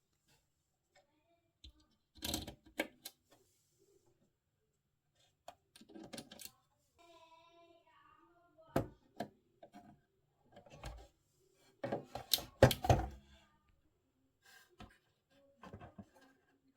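Irregular clicks and knocks of hands and tools handling the plastic and metal parts of a radio cassette recorder under repair, with a louder run of knocks about twelve seconds in.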